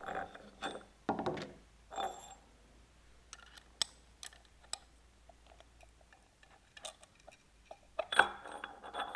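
Steel gear-pump parts and hand tools being handled during dismantling: scattered sharp metallic clicks and clinks as the bearing covers are worked off the bearing bracket, with short rustling handling noises at the start and near the end.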